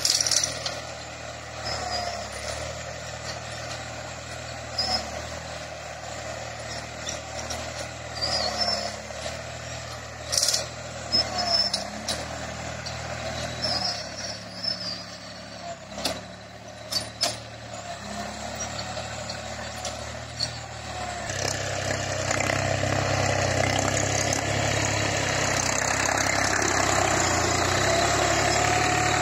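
Force OX25 Orchard tractor's diesel engine running steadily under load as it pulls a tine cultivator through the soil, with a few sharp knocks in the middle. It grows louder from about two-thirds of the way in.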